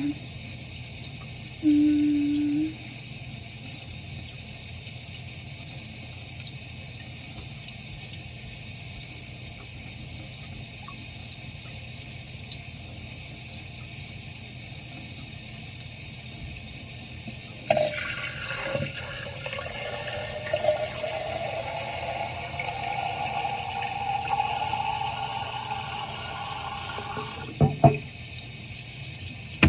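Sink tap running steadily. About two-thirds of the way in the water starts pouring into a container, its pitch rising slowly as the container fills, with a couple of sharp knocks near the end before the running water cuts off.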